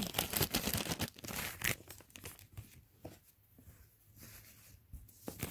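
Clear plastic bag being handled, crinkling and crackling in irregular bursts, busiest in the first couple of seconds and then sparser.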